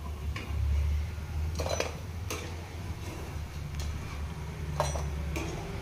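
Perforated stainless-steel slotted spoon clinking and scraping against a steel kadai as frying onion pakodas are turned and lifted out of the oil: several sharp clinks, with a steady low hum underneath.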